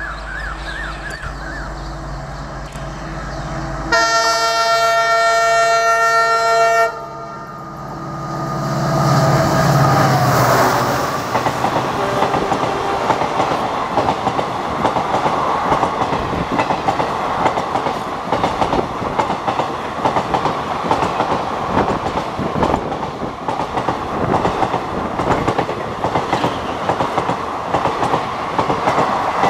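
An EMD WDP4D diesel locomotive, with its 16-cylinder two-stroke engine, approaches and passes at speed. Its horn sounds for about three seconds and cuts off, the engine swells as the locomotive goes by, and then the passenger coaches pass with a steady, rapid clatter of wheels on the rails.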